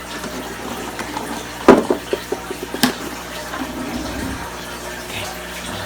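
Steady rush of running water, with a sharp clatter about two seconds in, a quick rattle, and a second knock.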